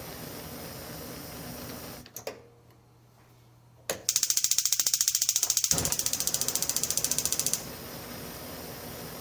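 Gas stove burner hissing, shut off with a couple of clicks of the knob about two seconds in, then relit: the electric igniter ticks rapidly for a few seconds, the flame catches partway through and the burner hisses steadily again once the ticking stops.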